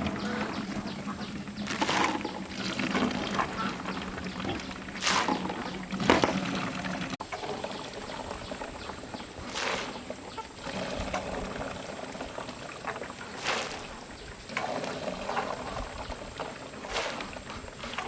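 Water splashing in repeated separate scoops or pours, one every two to four seconds.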